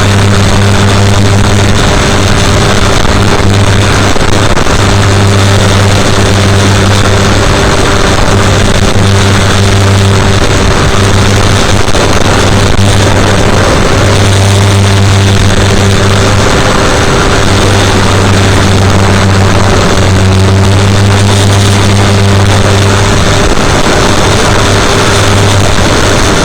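FPV aircraft's motor and propeller droning at a steady pitch in flight, with heavy wind rush, picked up by the onboard camera's microphone.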